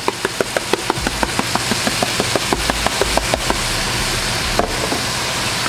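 Shrimp sizzling in hot oil in a frying pan: a steady hiss with quick crackling pops of spitting oil, several a second at first and thinning out about three and a half seconds in, over a low steady hum.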